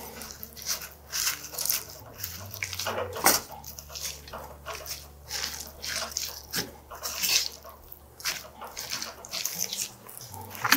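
Wooden spoon stirring bibimbap (rice, shredded vegetables and sauce) in a metal bowl: wet squishing and scraping strokes, irregular, a few a second.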